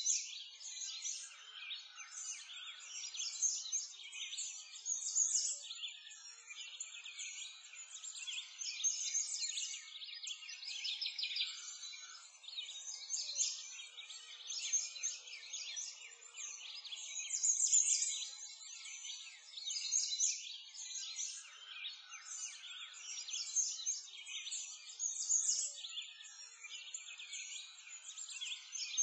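Many small birds chirping and singing over one another in a continuous chorus of quick high chirps and trills, swelling in louder flurries every couple of seconds.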